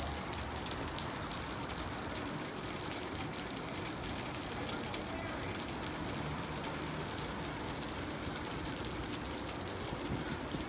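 Flood water pouring and splattering down steadily, like heavy rain, with many small drips and splashes.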